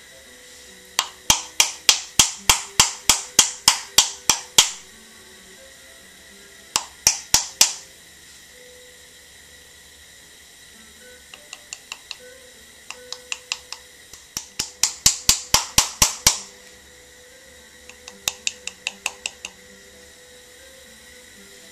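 Wooden paddle slapping the side of a clay cup to flatten it into a new shape. The slaps come in several quick runs of sharp strikes, about five a second, with short pauses between runs; some runs are fainter than others.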